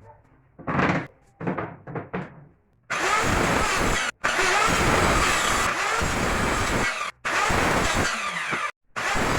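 Power tool working wood in several edited clips: a few short bursts, then stretches of steady running broken by abrupt cuts.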